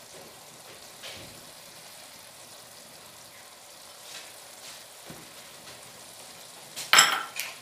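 Daal mash simmering in an aluminium pot, a faint steady bubbling hiss with a few soft clicks. Near the end, a loud, brief clatter of a spoon against the pot as stirring begins.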